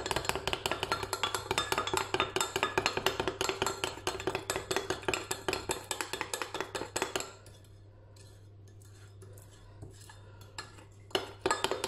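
A metal spoon stirring chocolate custard powder into milk in a glass Pyrex measuring jug, clinking and scraping against the glass several times a second. The stirring stops about seven seconds in and starts again near the end.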